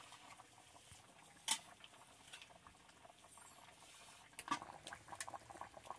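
Potato curry boiling in a metal kadai, faint, with a single knock about a second and a half in; from about four and a half seconds the bubbling turns into a quick run of small pops and crackles.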